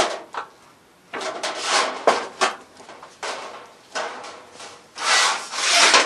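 Sheet metal scraping and rubbing against the steel bending brake as it is worked and slid out: a sharp click at the start, then several rasping scrapes, the longest and loudest near the end.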